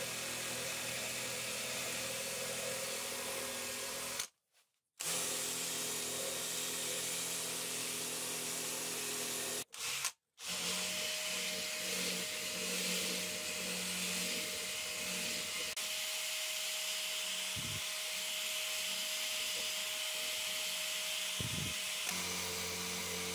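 Cordless drill running a wire wheel brush against the fly press's threaded steel screw, then a drill working in a hole in the press's metal ball weight: a steady motor whine with a grinding hiss. The sound stops abruptly twice, briefly, and the pitch changes after the second stop.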